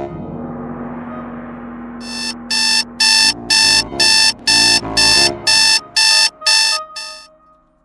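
Electronic alarm clock beeping, starting about two seconds in: eleven short beeps, about two a second, over quiet music that fades out near the end.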